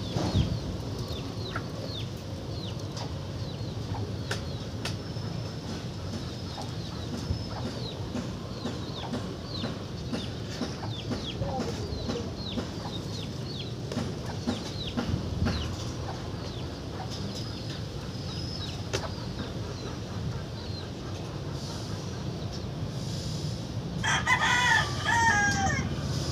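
A rooster crows once near the end, a wavering call about a second and a half long, the loudest sound here. Before it there is a steady low background hum, scattered with many short, high chirps falling in pitch.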